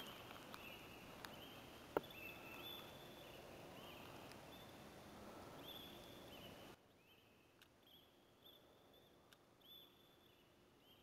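Near silence, with faint short high chirps recurring about once a second and a soft click about two seconds in.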